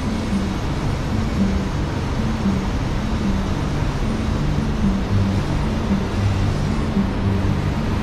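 Steady rushing of a fast river through rocky rapids, with the low stepping bass notes of background music underneath.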